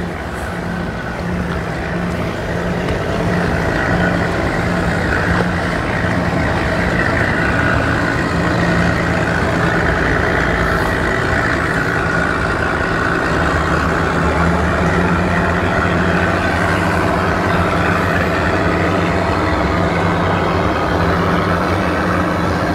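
Twin outboard motors on a center-console boat running at low speed close by: a steady low engine hum with a higher whine over it, growing louder over the first few seconds and then holding.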